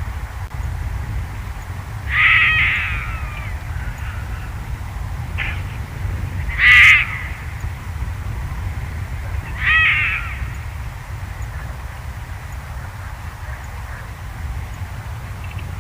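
Three loud, harsh animal calls a few seconds apart, each under a second long, with the middle one the loudest and a faint short call between the first two. A steady low rumble runs underneath.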